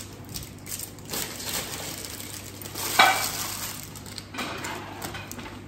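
Cookware and utensils clattering while food is cooked, over a steady hiss, with one loud sharp clank of metal about three seconds in.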